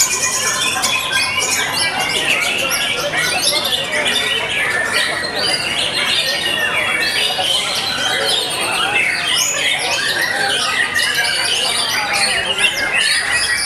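White-rumped shama (murai batu) singing, a loud, dense, unbroken stream of rapid whistles, glides and harsh chattering notes, with other caged contest songbirds singing at the same time.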